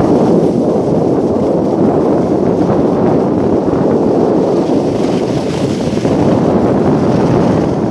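Wind rushing over a phone's microphone while skiing downhill: a steady, loud noise, mostly low in pitch.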